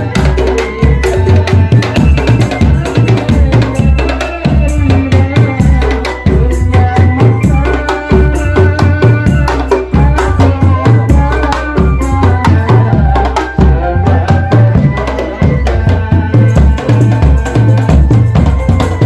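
Marching drum band playing loudly: steady, driving bass and snare drum beats with a melody line held above them throughout.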